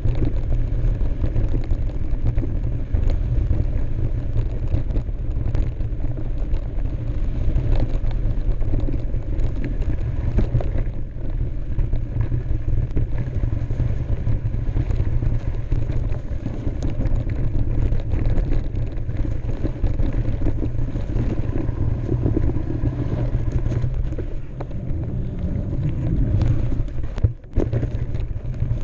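Mountain bike riding down a dirt trail: a steady low rumble of wind buffeting the camera microphone over the hiss of the tyres on the dirt. Scattered short clicks and knocks come from the bike over bumps.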